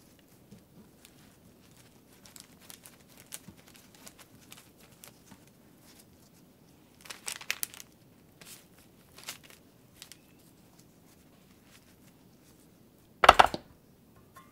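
Gloved hands handling raw bacon and enoki mushrooms on parchment paper: soft crinkling and rustling of the paper, with a crisper crackling tear about seven seconds in as enoki stems are pulled apart from the bunch. Near the end, one loud knock.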